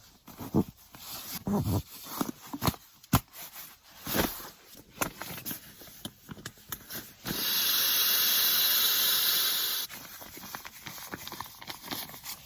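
Handling clicks and rustles of camping gear being packed, then a loud, steady hiss of rushing air for about two and a half seconds that cuts off suddenly.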